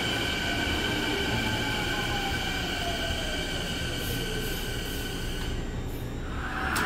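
Canada Line train pulling out of an underground station into the tunnel: steady high whines and a tone sliding down in pitch, fading away about five or six seconds in as the train recedes.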